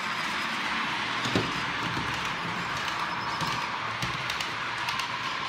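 OO gauge model trains running: a steady whirr of small electric motors and wheels on the track, with one sharp click about a second and a half in and a few lighter clicks later.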